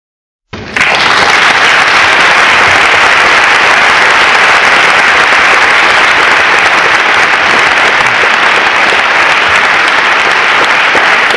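Audience applauding, loud and steady, beginning abruptly about half a second in.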